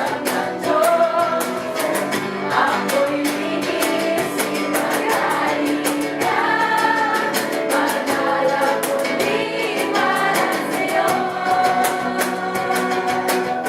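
Worship song: voices singing a melody together over instruments with a steady beat.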